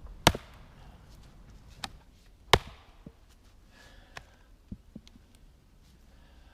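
Helko camp axe, a 2.5-pound C45 steel head, striking a dry ash log to split it: two hard blows about two seconds apart, the second the loudest, with a lighter knock between them, then a few faint knocks.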